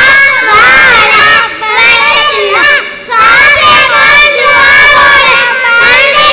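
A group of young boys singing loudly together into microphones, amplified through a PA, in short phrases with brief breaks.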